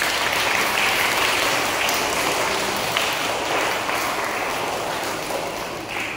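Audience clapping steadily, easing off near the end.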